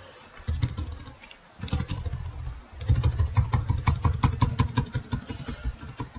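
Computer keyboard keys tapped rapidly over and over, the backspace deleting text one character at a time, in three quick runs of clicks with a dull thump under each keystroke.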